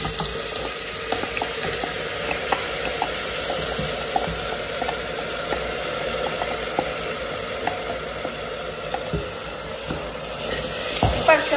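Food frying in hot oil in a pan, sizzling steadily, with a few light clicks.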